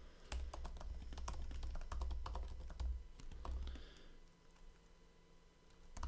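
Typing on a computer keyboard: a quick run of key clicks for about four seconds, a pause of nearly two seconds, then typing starts again at the end.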